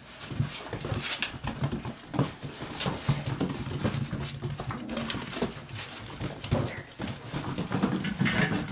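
Border Collie puppies whimpering, with many short scuffling and scratching sounds from small paws on the pen floor.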